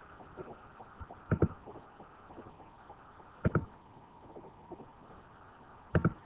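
Computer mouse button clicking: three short, sharp clicks about two seconds apart, as lines are erased one by one.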